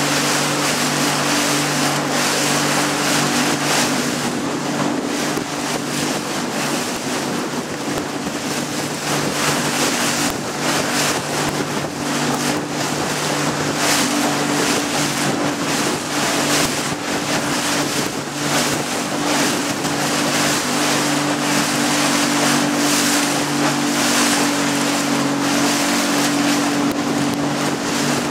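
A small boat's motor running steadily under way, a constant low drone, with wind rushing and buffeting over the microphone.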